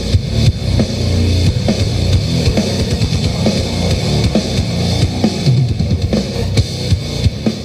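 Loud music with a heavy bass line and drum beat, played through a miniature sound system with a 15-inch subwoofer during a sound check; it cuts off at the very end.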